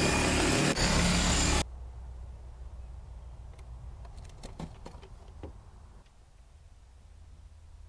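Cordless power saw cutting through a garage wall, widening a pilot hole to 4 inches, which stops abruptly about a second and a half in. A low steady hum follows, with a few faint clicks.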